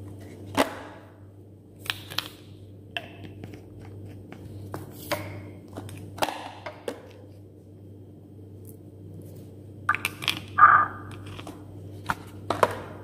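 Scattered clicks and knocks of small containers being handled and set down on a stone countertop (a glass bottle and a plastic ointment tube), with a busier cluster of handling about ten seconds in, over a steady low hum.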